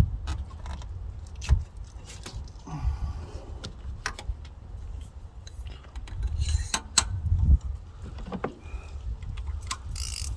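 Metal tools and spark-plug parts clinking and clicking as they are handled, with low bumps and knocks of handling, during a spark plug change.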